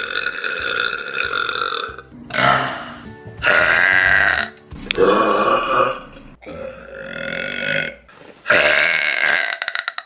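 A series of about six burps, one after another with short gaps, the first drawn out for about two seconds.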